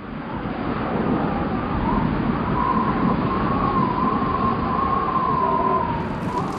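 A steady, loud rumble that swells in at the start, with a thin, wavering, whistle-like tone joining about two seconds in.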